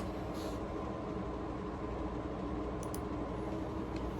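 Steady background hum and hiss, with a few faint clicks about three seconds in and near the end.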